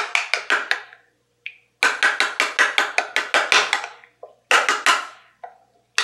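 Metal spoon clinking and scraping against the side of a small bowl in quick stirring strokes, about five a second, in three runs with short pauses, as tomato concentrate is stirred into thick pizza sauce.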